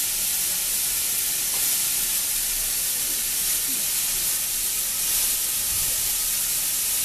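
Steam hissing steadily and loudly from a standing GWR 5101 class 'Large Prairie' 2-6-2T steam tank locomotive, with no change or rhythm throughout.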